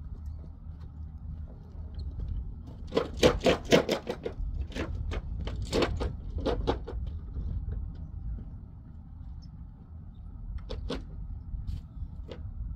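Sharp knocks and clatter of stones and rubble in and around a metal wheelbarrow on rocky ground: a quick run of knocks about three seconds in, a few more over the next few seconds, then two more near the end, over a low steady rumble.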